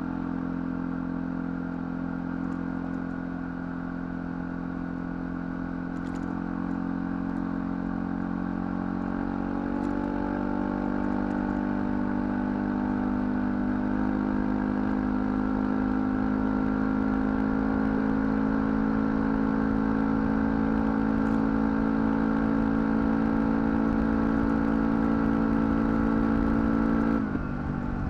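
ATV engine running steadily under load, its pitch climbing gradually about a third of the way in and then holding. Near the end the engine note drops suddenly as the throttle comes off, with a few faint clicks and clatter along the way.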